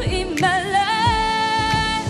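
A woman singing over pop band backing with a regular drum beat; her voice slides up into a long held note with a slight vibrato.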